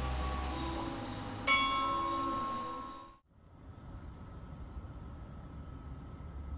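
A single bell-like metallic strike about a second and a half in, ringing over a background of music with a low hum. The sound cuts off abruptly about three seconds in, leaving faint steady background noise with a thin high tone.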